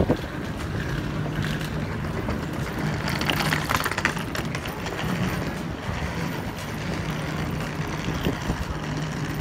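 Street traffic noise: vehicle engines running with a steady low hum, swelling to a louder rush about three to four seconds in.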